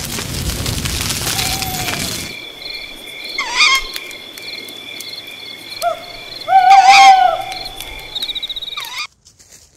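Intro sound effect: a crackling fire for about two seconds, then a night-time forest ambience of steady insect chirring with two rounds of croaking, hooting animal calls, the louder about seven seconds in. It cuts off suddenly about nine seconds in.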